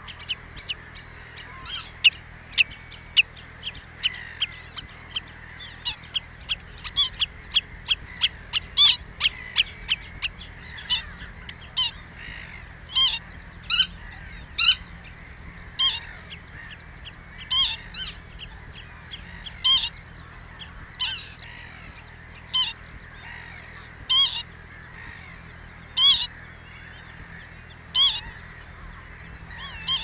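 Common redshank calling: a fast run of short, sharp calls, several a second, that slows about eleven seconds in to single calls about one every second or two.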